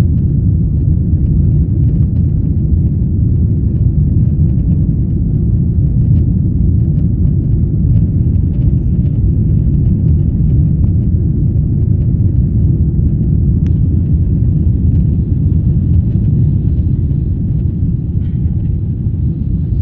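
Boeing 777-300ER cabin noise heard from an economy seat: a loud, steady, low rumble of the GE90 engines and rushing air, with faint small ticks of cabin rattles.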